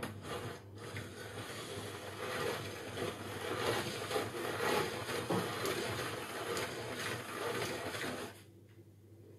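Hand-cranked pasta machine rolling a sheet of semolina dough through its steel rollers, the crank and gears grinding steadily, then stopping suddenly near the end.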